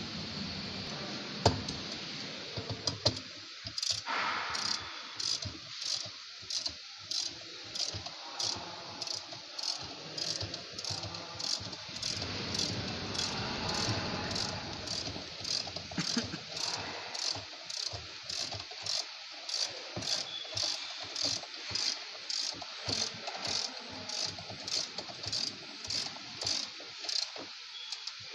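Rhythmic metallic clicking, just under two strokes a second and very even, from hand work on a Samsung washing machine's parts as it is reassembled; a sharp knock comes about a second and a half in.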